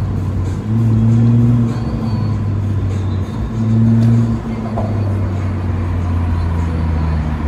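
Muffler-deleted 2012 Lexus IS250 F Sport's V6 exhaust heard from inside the cabin, a steady low drone while driving slowly, swelling louder twice under throttle, about a second in and again about four seconds in, without its pitch rising.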